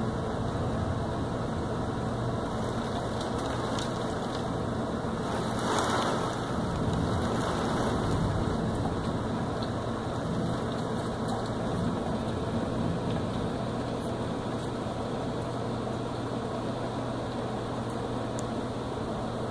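Heavy thunderstorm rain falling steadily, swelling louder for a few seconds about six seconds in, with a steady low hum underneath.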